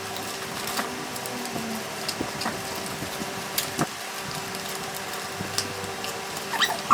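Scattered light clicks and taps from a keyboard and its packaging being handled, over a steady electrical hum. Near the end, high squeaky rising-and-falling calls begin.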